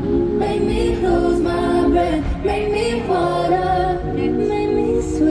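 Music with a female voice singing held, gliding notes over a steady low accompaniment.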